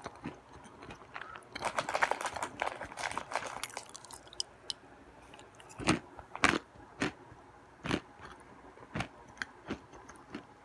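Nuts being chewed, crunching loudly: a dense run of crackling bites about two seconds in, then single sharp crunches every half-second to a second.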